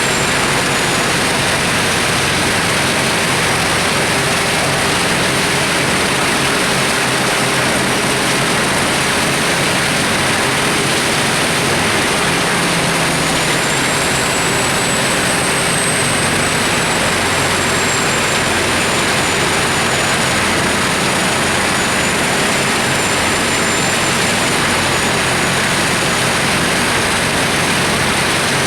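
Giant mobile drum wood chipper running steadily and loudly, with a thin high whine that rises about halfway through and then slowly sags.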